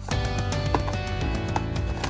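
Background music: sustained tones with a few light percussive hits.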